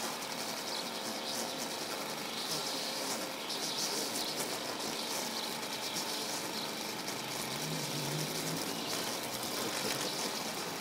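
A string trimmer's small engine running steadily as it cuts weeds along a paved edge, with a hissy, buzzing cutting sound.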